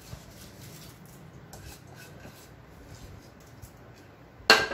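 Soaked rice and moong dal being scraped out of a bowl into an aluminium pressure cooker, mostly faint, then a single sharp metal clank with a brief ring near the end.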